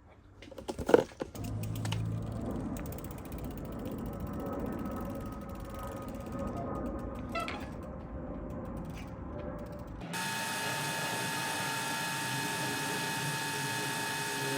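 Mountain bike rear freehub ratcheting: the pawls click rapidly as the wheel spins without pedalling. About ten seconds in, it cuts abruptly to a steady hum with a few constant high tones.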